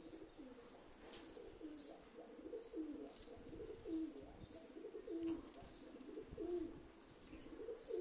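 Doves cooing, a steady run of short low notes about once or twice a second, with faint high chirps of small birds in between.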